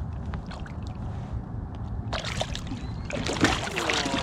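Water splashing and sloshing, with clattering knocks, beside a fishing kayak as a hooked blue catfish is brought alongside. The splashing starts about halfway through, over a steady low rumble.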